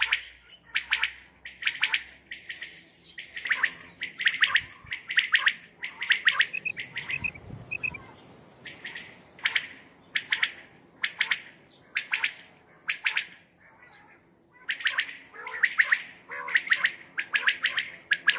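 Common quail calling over and over: short, sharp, high calls in quick groups of several notes each, with a brief lull about halfway through and another near the end.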